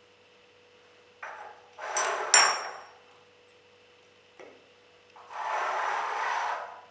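Handling of a glass jar while aubergine slices are pressed into it by hand: short rubbing and rustling, with a sharp clink against the glass that rings briefly about two seconds in. Near the end comes a rubbing scrape lasting about a second and a half.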